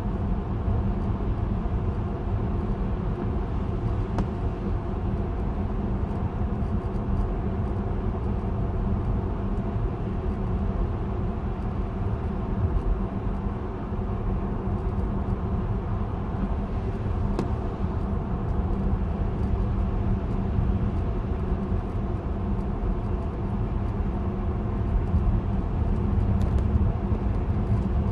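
Car driving at highway speed, heard from inside the cabin: a steady low rumble of road and engine noise with a constant hum.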